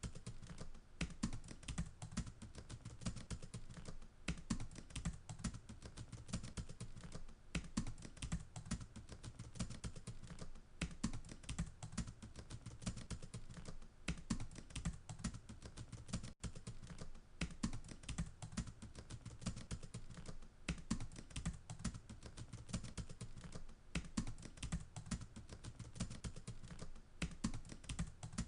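Continuous rapid, uneven clicking and tapping, with a brief break about sixteen seconds in.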